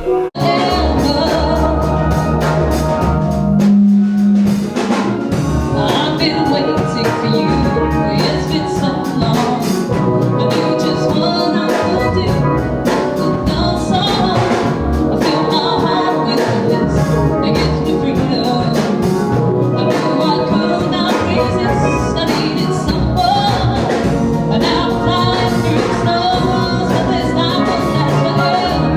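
Band music with a steady drum beat, bass and pitched instruments.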